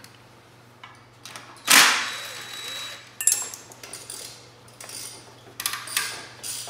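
Tools being handled on a concrete garage floor: a loud clatter about two seconds in, then scattered metallic clinks and taps, as of driver bits and tools knocking together in a plastic bit case.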